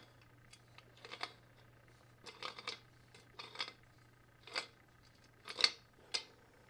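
Channel-lock pliers clicking and scraping, metal on metal, on the upper bearing retaining nut of a Federal Signal Model 2 siren's motor shaft as the nut is turned off. A short clatter comes roughly once a second as the pliers are re-gripped and turned.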